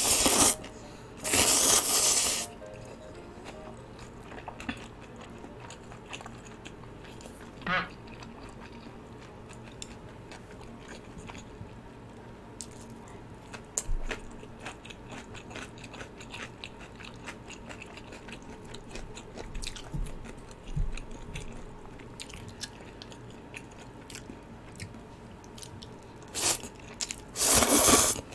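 Ramyun noodles slurped loudly from a bowl about a second in and again near the end, with quiet chewing and crunching in between.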